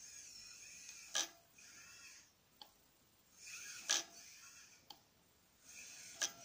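Small electric motor and gear reduction of a 1/43-scale LDARC RC truck whining in short throttle bursts, about four times, with three sharp clicks as it crawls over wooden boards.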